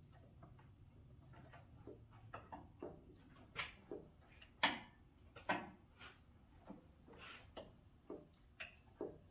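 Light, irregular clicks and knocks of engine parts and hand tools being handled under an engine with its oil pan off, about a dozen scattered taps over several seconds.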